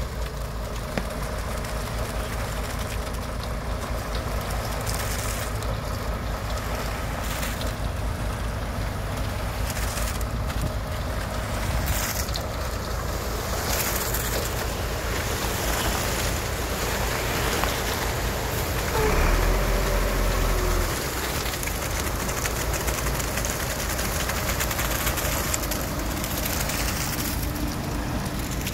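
Concrete mixer truck's diesel engine running steadily with the drum turning, as wet concrete slides down the chute and drops into the trench. About two-thirds of the way through, the low rumble grows louder for a couple of seconds.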